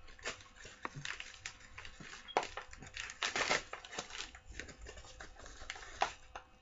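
A yellow mailer envelope being opened by hand, with irregular crinkling, rustling and sharp crackles of the packaging. The loudest crackles come around the middle and again about six seconds in.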